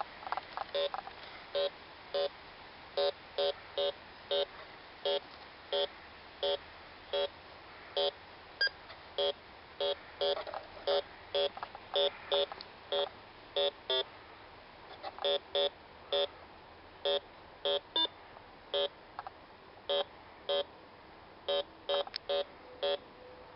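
Bounty Hunter 3300 metal detector giving short electronic beeps, singly and in quick pairs at an irregular pace, as it is swept over metal targets in the ground.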